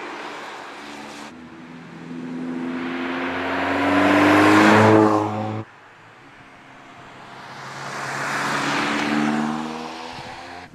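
Mercedes-AMG CLA 45 Shooting Brake's turbocharged 2.0-litre four-cylinder engine accelerating as the car drives past, the engine note rising to a loud peak and cutting off suddenly about five and a half seconds in. A second pass follows, building up and then fading as the car goes by.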